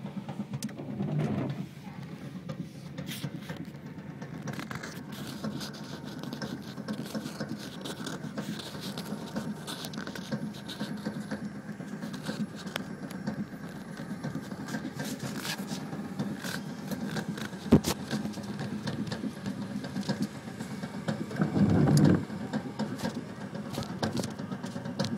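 Cabin noise inside a moving car: steady engine and road noise with scattered light ticks and pattering. There is one sharp click about two-thirds of the way through, and a brief louder low rumble near the end.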